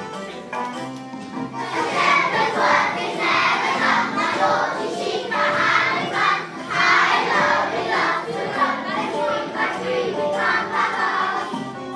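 A group of children singing together over instrumental music. The singing comes in about two seconds in and drops away near the end, leaving the music alone.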